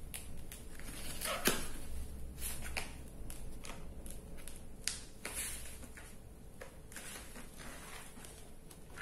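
Small scissors snipping through packing tape and plastic wrapping on a parcel, with crinkling and rustling as the package is handled. The clicks and rustles are busiest over the first few seconds and thin out later.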